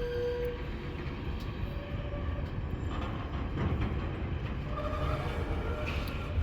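A passing train: the steady rumble of its wheels and running gear on the track, with a brief thin tone near the start.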